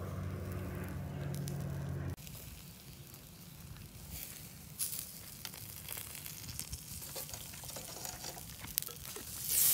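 Marinated meat sizzling on the wire mesh of a small charcoal grill, with sharp clicks of metal tongs as the pieces are turned. A steady low hum plays under the first two seconds and cuts off abruptly. The sizzle swells louder near the end.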